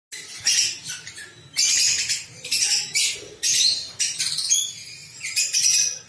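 Peach-faced lovebirds calling: a string of loud, shrill, harsh chirps, about eight short calls in quick succession.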